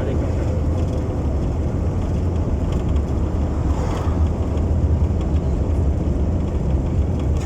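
Car under way: steady engine and road noise with a deep, even rumble.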